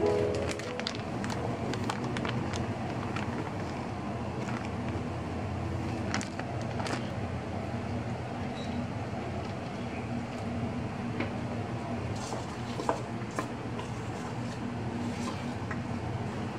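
Glutinous rice flour poured from a plastic bag into a stainless steel bowl, then mixed in the bowl by hand: soft rustling and scattered light taps over a steady low hum.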